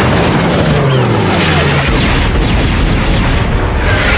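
Cartoon battle sound effects: a dense, continuous wash of booms and blasts over a low rumble, with several falling zapping tones in the second half.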